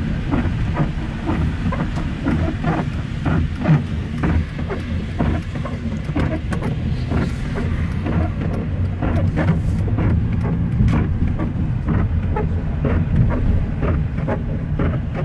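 Heard from inside a car driving on a wet road in heavy rain: a steady low engine and tyre rumble, with irregular sharp ticks of rain striking the windshield and roof.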